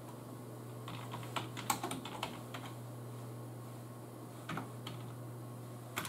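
Typing on a computer keyboard: a quick run of key clicks about a second in, then a few single key presses near the end, over a steady low hum.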